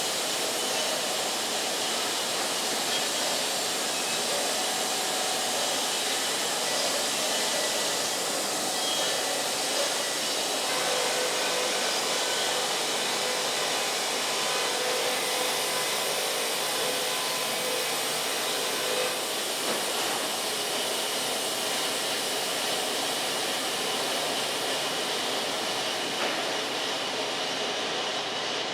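Wood-Mizer LT50 band sawmill running steadily, its engine and band blade making an even mechanical noise, with a faint steady tone rising out of it in the middle stretch.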